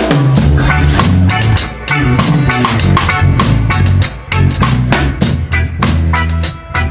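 Live reggae band playing, with the drum kit close and loud: kick, snare and cymbals over a bass line and keyboard.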